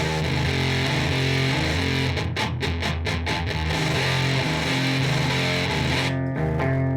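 Ibanez S470 electric guitar played through a distorted tone, a continuous run of notes and chords; about two seconds in, and again near the end, the playing turns short and choppy.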